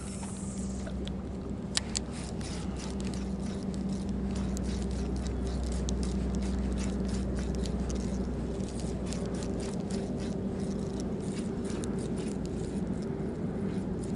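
Spinning reel being cranked to retrieve a metal casting spoon: a low steady whir that stops for a few seconds past the middle and then resumes, with scattered small clicks and rustles of rod and line handling.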